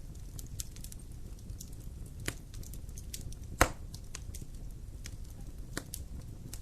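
Wood fire burning in a fireplace: a steady low rumble of flames with scattered crackles and pops, one sharp, loud pop about halfway through.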